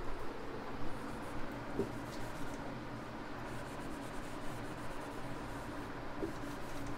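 Faint rubbing of a whiteboard duster wiping marker ink off a whiteboard, with a few faint scratchy strokes over room hiss.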